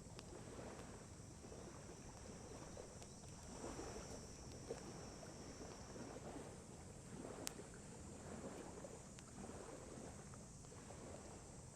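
Wood campfire crackling faintly with a few sharp pops, over a soft wash of lake waves lapping. A thin high steady tone sounds for a few seconds midway.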